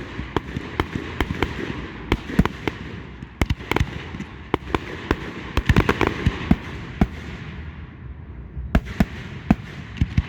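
Fireworks display: a rapid, irregular run of bangs over a continuous rumble and crackle of aerial shells bursting. The bangs crowd together around the middle and thin out briefly near the end.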